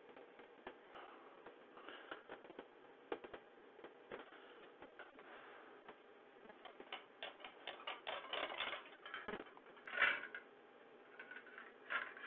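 Faint, irregular small clicks and taps, coming thicker and louder in the second half, heard through a video call's thin audio.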